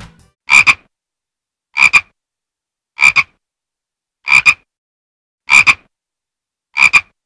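A frog croaking six times, evenly spaced about every 1.2 seconds, each croak short and doubled, with silence between.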